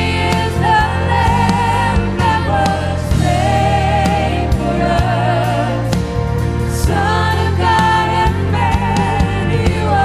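A woman sings the lead of a worship song into a handheld microphone, backed by a band with piano, steady bass notes and drums.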